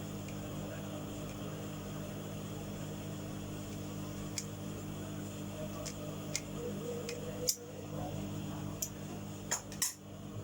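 Steady hum of an overlock sewing machine's electric motor running while it is not stitching, with a few light clicks in the second half.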